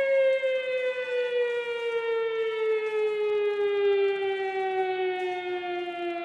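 Air-raid siren wailing, one long tone whose pitch slowly falls.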